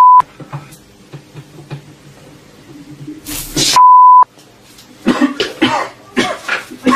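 A wire shorting out at the desk: a sudden half-second crackling pop about three seconds in, with smoke, followed at once by a steady censor bleep. In the last two seconds a man coughs and splutters.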